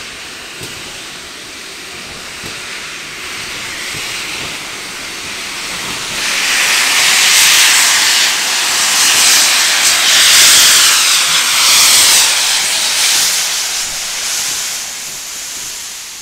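Steam hissing from the open cylinder drain cocks of GWR Modified Hall 4-6-0 No. 6990 'Witherslack Hall' as it moves off, clearing water from the cylinders. The hiss swells as the locomotive approaches, is loudest from about halfway through, then fades near the end.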